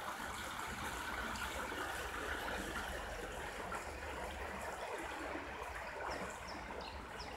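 A brook swollen after rain, running fast: a steady rush of water.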